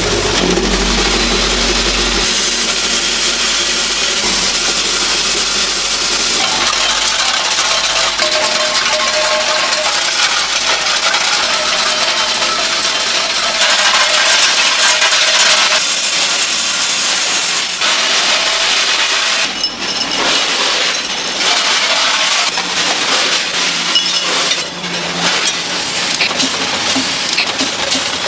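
Automated fried-rice factory machinery running, with a continuous clatter and clinking of small hard pieces on metal; the sound changes abruptly several times.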